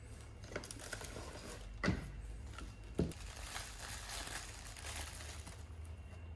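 Faint rustling and handling noises with two short knocks, about two and three seconds in, as a spinning reel and its handle are taken out and handled over their cloth bag and box.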